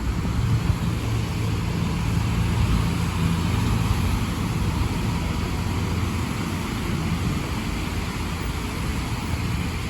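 A bus engine running close by: a steady low hum that eases off after about six seconds, over a continuous hiss of traffic on a wet road.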